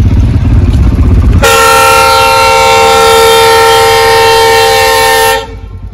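Indian Railways diesel locomotive sounding its air horn in one long blast of several tones together, held steady for about four seconds and cutting off abruptly near the end. A low rumble runs under the opening second and a half, before the horn starts.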